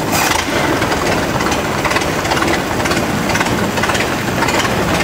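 Ford Model T four-cylinder engine idling through open headers with the muffler removed. The idle is odd enough to draw comment; the driver blames a worn distributor shaft, while a passenger jokes it must have a radical cam.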